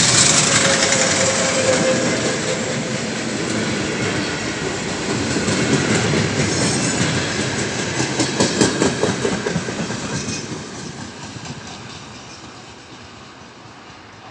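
Freight train wagons rolling past close by, steel wheels clattering over the rail joints, with a quick run of clicks about eight to nine seconds in. The sound then fades steadily as the end of the train moves away.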